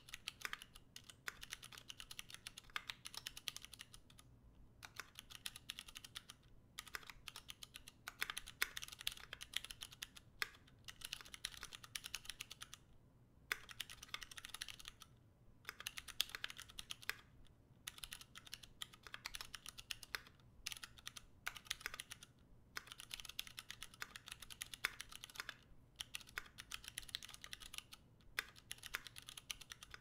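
Typing on an Exclusive E6.5 custom mechanical keyboard with tactile Cherry Ergo Clear switches on 52 g springs, a brass plate and GMK keycaps: fast runs of key clacks broken by short pauses every few seconds.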